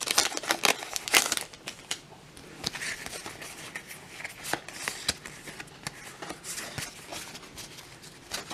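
Foil booster-pack wrapper crinkling as it is torn open, loudest in the first second and a half, followed by softer rustling and flicking of the trading cards as they are pulled out, fanned and handled.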